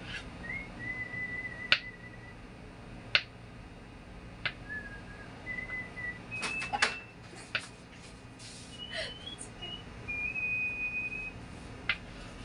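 Kitchen knife cutting through firm tofu onto a bamboo cutting board: about ten sharp knocks of the blade on the board, spaced unevenly, with a quick cluster a little past the middle. Between the knocks come several short, steady, high whistled notes.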